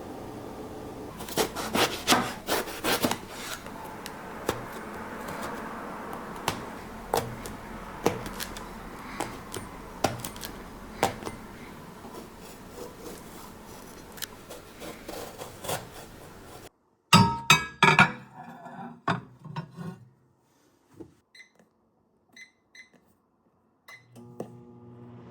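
Kitchen food preparation: a knife knocking and scraping on a cutting board in a scattered series of sharp knocks. About two-thirds of the way in, the background hum drops out abruptly and a quick cluster of louder clicks follows, then a few faint ticks.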